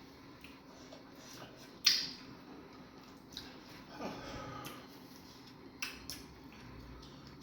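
Dishes and utensils clinking and tapping during a meal: a few sharp separate clicks, the loudest about two seconds in, over a low steady hum.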